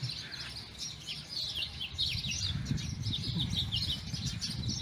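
Many small birds chirping in short, quickly falling notes, thickest in the second half, over a low rumble.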